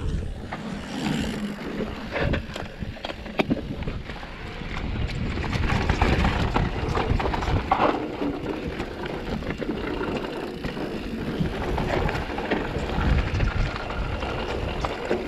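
Specialized Turbo Levo electric mountain bike ridden over a rough trail, with frequent knocks and rattles from tyres and frame over stones and wind rumbling on the microphone.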